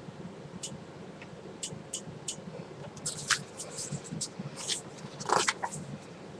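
Pages of a photo book being turned and handled: scattered paper rustles and light clicks, busier in the second half, with a louder rustle about five seconds in.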